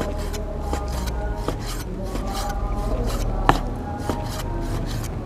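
Cleaver slicing raw beef on a wooden cutting board: a steady run of knife strokes cutting through the meat and tapping the board, with one sharper knock about three and a half seconds in.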